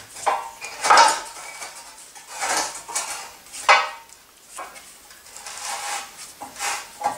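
Steel radiator key clinking and scraping against the cast iron inside the sections of a 1935 Ideal Narag radiator as it is worked to join them, in irregular metallic clanks about a second apart.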